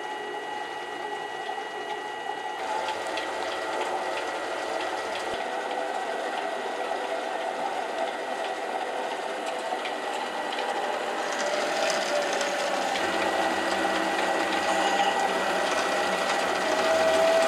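Mini lathe running under power feed from the leadscrew, taking a slow finishing cut on the bolt's head diameter, with a steady high whine. It grows somewhat louder about two-thirds of the way through.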